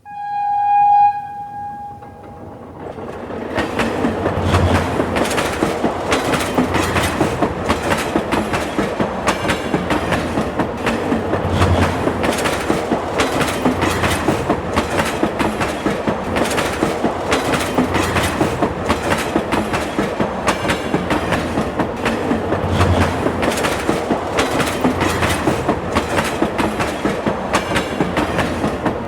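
A subway train sounds its horn once for about two seconds, then runs along the track with a steady, fast clickety-clack of the wheels over rail joints.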